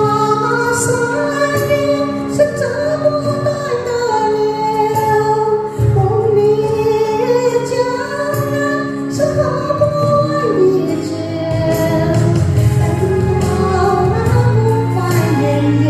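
Female vocals singing a Chinese ballad over instrumental accompaniment with a steady bass line.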